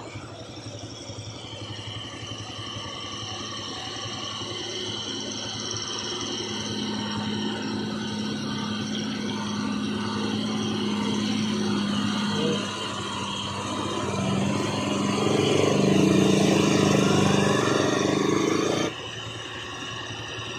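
A vehicle engine runs steadily at low speed, growing louder over most of the stretch. It drops off abruptly a little before the end.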